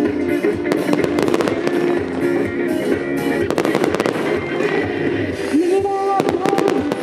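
Fireworks going off in quick succession, many sharp bangs and crackles, over loud pop music played for the show.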